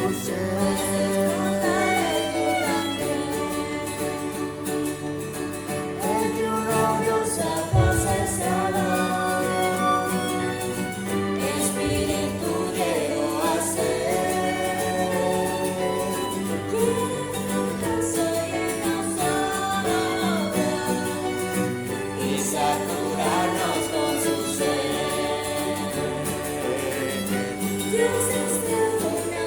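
Recorded Christian hymn: a group of voices singing over instrumental accompaniment, with a low thump about eight seconds in.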